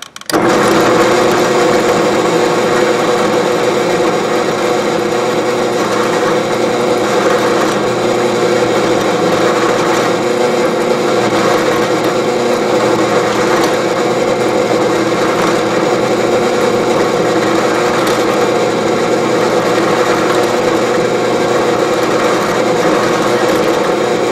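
Drill press switched on just after the start and running steadily, its twist bit boring a pin hole through a wooden knife handle block into the block beneath.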